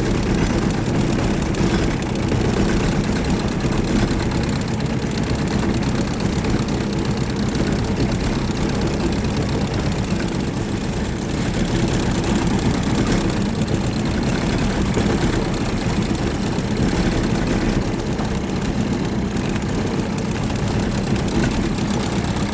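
Boat's outboard motor running steadily at low trolling speed.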